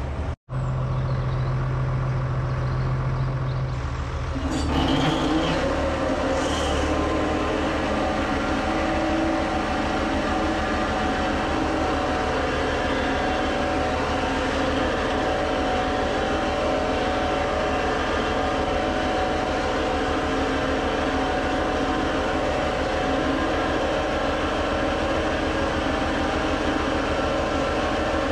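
County tractor's diesel engine running with the Twose hedge trimmer's PTO-driven hydraulics working. About four seconds in the sound grows louder and fuller, then settles into a steady drone with several held tones.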